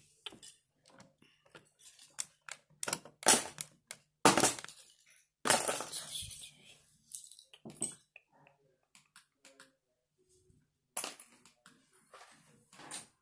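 Irregular clattering and rustling of plastic toy parts and a cardboard box being handled, a run of sharp noisy knocks and scrapes with the loudest about three to six seconds in and scattered clicks after.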